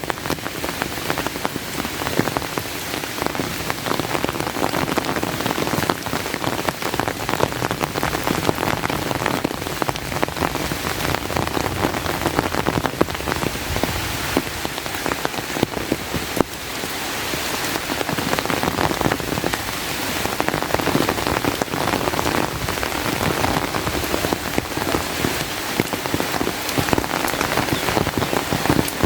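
Steady rain, a dense patter of drops falling close by without let-up.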